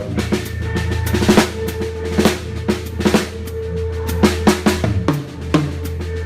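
A drum kit played live with a band: fast snare and bass drum hits over a sustained low bass tone, with a tom fill whose ringing drops in pitch near the end.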